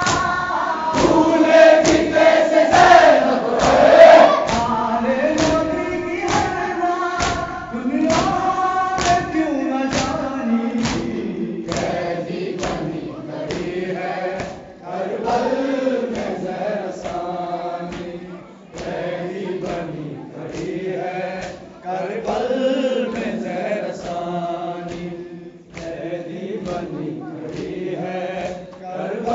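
Mourners chanting an Urdu nauha together, with rhythmic chest-beating (matam) thumps nearly twice a second. The strikes are strongest in the first ten seconds and grow fainter after.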